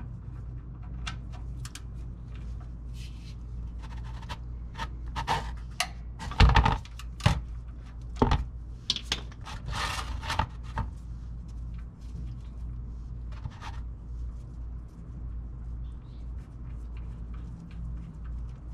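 A 13 mm wrench working the oil pan drain bolt loose: scattered metallic clicks and scrapes, with a couple of louder knocks around the middle, then fewer sounds over the last few seconds. A steady low hum runs underneath.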